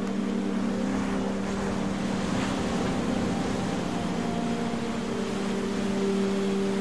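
Background music of held, droning notes, a low tone sustained throughout with higher notes coming and going over it.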